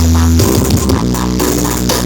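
Loud electronic dance music played through a large horeg sound system, the EVONIX Audio rig, at a sound check. A heavy, booming bass line with plucked-guitar-like notes changes pitch about half a second in.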